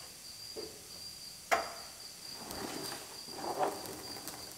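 A sharp single knock of metal about a second and a half in, then softer scraping and handling as the clamped outer rocker panel is shifted into position on the truck's cab. A steady high-pitched trill runs underneath.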